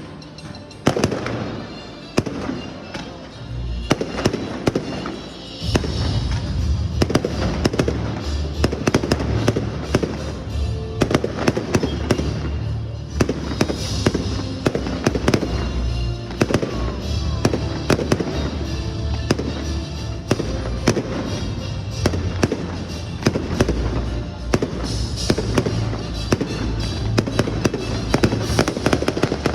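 Fireworks display going off continuously, many sharp bangs and crackling bursts one after another, with music playing underneath that grows fuller about six seconds in.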